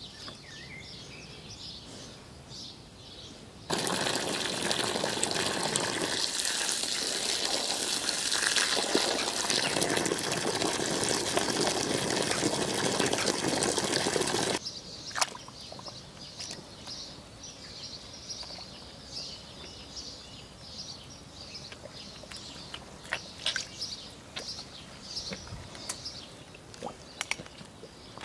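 Garden hose spray nozzle hissing as it jets water into a muddy puddle, starting abruptly about four seconds in and cutting off suddenly about halfway through. Afterwards a pig wades in the puddle with a few small splashes, while birds chirp in the background throughout.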